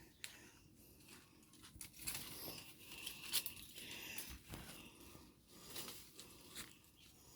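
Irregular rustling and crunching with scattered sharp crackles, like dry material being crushed or brushed against. The loudest crackle comes about three and a half seconds in.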